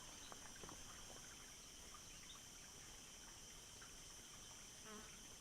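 Near silence: faint outdoor ambience with a few faint ticks.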